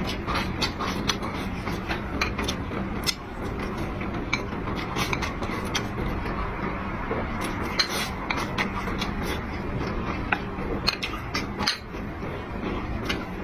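Close-miked eating sounds: irregular sharp clicks and smacks of chewing and of utensils against dishes, over a steady background hum.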